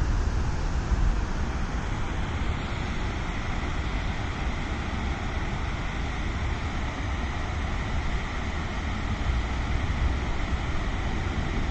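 Steady rush of river water pouring over a low weir, with a low rumble of wind on the microphone.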